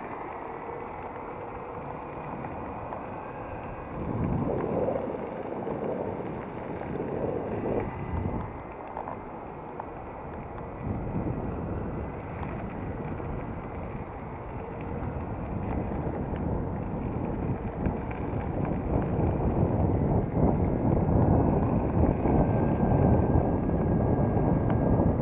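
Wind rushing over the microphone and the wheels of an electric all-terrain longboard rumbling on the road while riding downhill, with a faint steady whine from the board's electric drive. It grows louder in the second half as the speed picks up.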